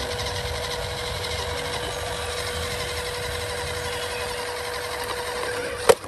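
Electric motor and gears of a scale RC Toyota Land Cruiser pickup whining steadily as it crawls under load over bricks in sand. A single sharp click comes just before the end.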